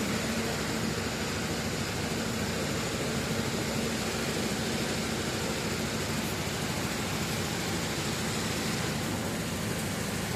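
Steady machinery and ventilation hum with an even rushing noise, unchanging throughout, with no distinct knocks or stitching rhythm.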